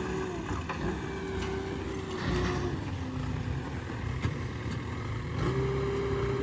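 Diesel engine of heavy machinery running, its pitch dropping twice and then rising as it revs up about five seconds in, with a few faint knocks over it.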